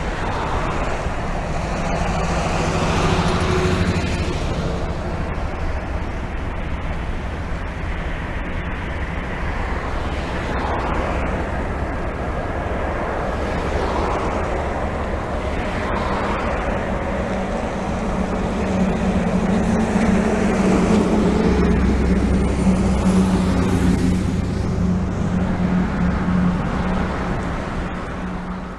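Boeing 787-9 Dreamliner's Rolls-Royce Trent 1000 engines at takeoff thrust through the takeoff roll and lift-off: a steady jet noise with a low hum that grows stronger past the middle.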